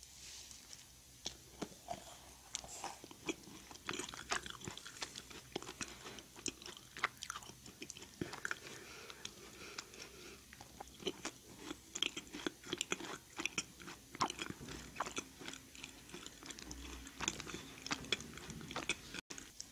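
A macaron being bitten and chewed: its crisp shell crackles in many small, sharp, irregular crunches, with soft chewing in between.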